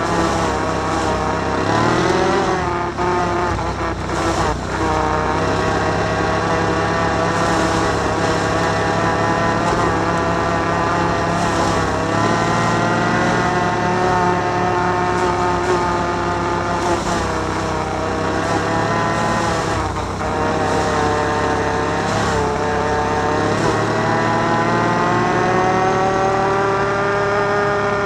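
Can-Am Outlander 1000 ATV's V-twin engine running while riding, its pitch rising and falling as the throttle is opened and eased off, with several brief drops in engine note.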